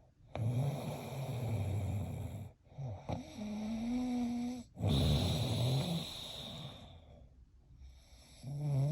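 Snoring: four long snores one to two seconds each, separated by short pauses, some carrying a steady pitched tone, the last starting near the end.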